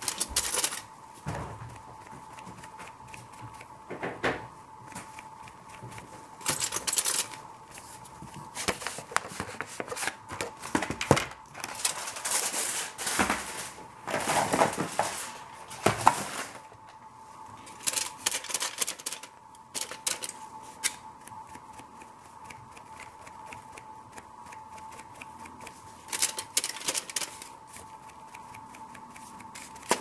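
A crumpled cloth dabbing white acrylic paint onto a painting, heard as clusters of quick taps with some cloth rustling between them. A steady faint tone runs underneath.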